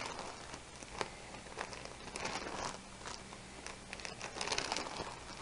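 Clear plastic sleeves of a ring binder full of tissue paper crinkling and rustling as the pages are turned, with irregular small crackles.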